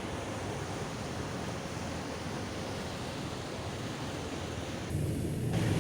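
Steady rushing of wind and water around a small motoring boat, as a large cargo ship passes close by. About five seconds in, the sound changes abruptly and a low engine hum grows louder.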